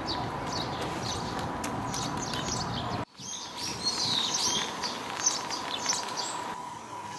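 Small birds chirping, many short repeated calls, over steady outdoor background noise with a faint steady tone underneath. The sound drops out for an instant about three seconds in and picks up again with more chirping.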